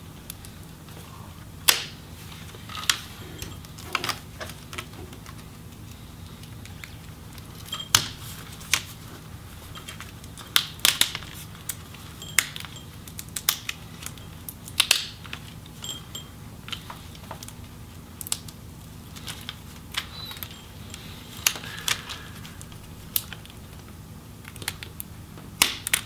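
Plastic snap clips and adhesive of a Lenovo ThinkPad T470's display bezel clicking and crackling loose as the bezel is pried off the LCD panel by hand: irregular sharp clicks every second or two over a steady low hum.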